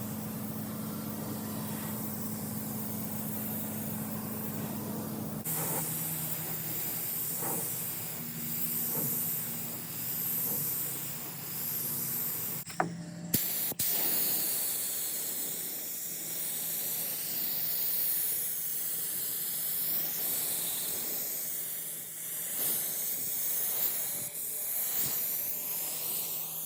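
Steady spraying hiss over a low hum, typical of paint being sprayed or a compressed-air tool running. The sound changes abruptly about five seconds in and again around thirteen seconds, with a brief knock near thirteen seconds.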